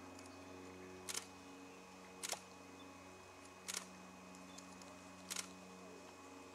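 A camera shutter clicks four times, each a quick double click, spaced about one to one and a half seconds apart. A faint steady low hum runs underneath.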